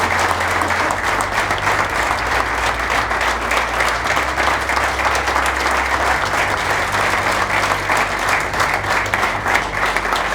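A roomful of people applauding steadily, many hands clapping together.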